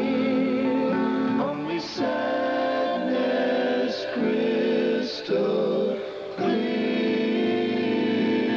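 A mixed vocal group of men and a woman singing a folk-pop song in harmony over acoustic guitar. The voices break off briefly between phrases.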